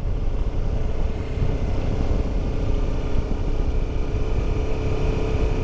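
Motorcycle engine running at a steady pace while riding, with wind rumbling on the camera microphone.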